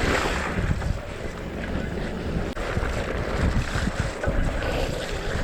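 Wind buffeting the camera microphone of a mountain bike on the move, a steady rushing noise with low, uneven rumble and knocks from the ride.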